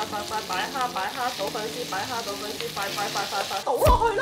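Prawns, garlic and shallots sizzling and frying in a pan, under a quick, chirping pitched pattern. Near the end comes a brief sweep with a low thump.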